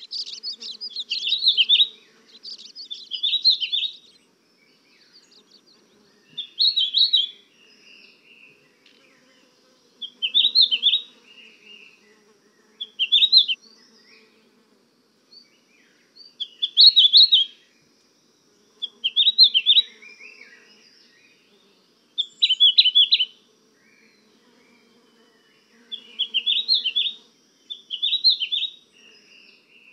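A songbird singing short, high chirping phrases, about ten of them, each about a second long with pauses of one to three seconds between.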